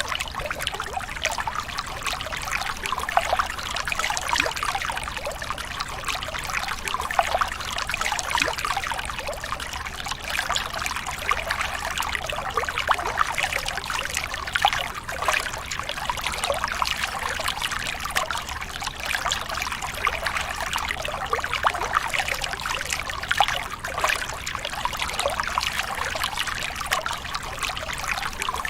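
Water trickling steadily, with many small splashes and drips.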